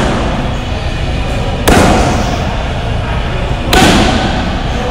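Bare-foot kicks smacking into a handheld kick shield: two sharp hits about two seconds apart, each ringing on in a large hall.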